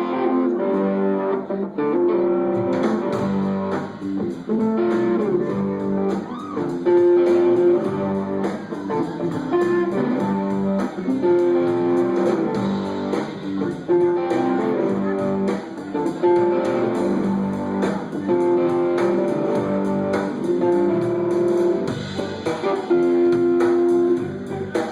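Live band playing an instrumental passage led by guitar, a melodic phrase repeating about every two seconds.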